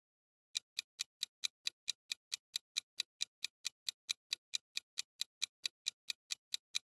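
Countdown-timer sound effect: evenly spaced, clock-like ticks, about four and a half a second, starting about half a second in.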